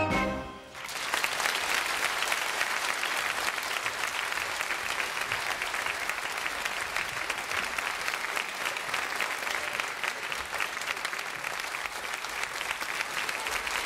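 A song's final chord ends about half a second in. Steady applause follows, from a group of children clapping their hands.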